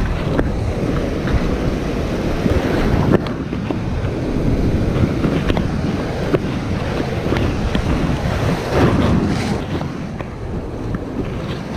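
Wind buffeting the microphone over the wash of shallow surf breaking and running around, with a sharp click about three seconds in.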